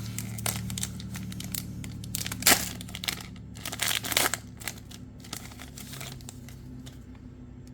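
Foil booster pack being torn open and crinkled, with cards rustling, in irregular bursts that are loudest about two and a half seconds in and again around four seconds, then settling to light handling.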